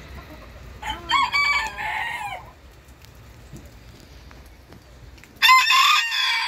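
A booted bantam rooster crowing twice: one crow about a second in, and another near the end that runs on past it.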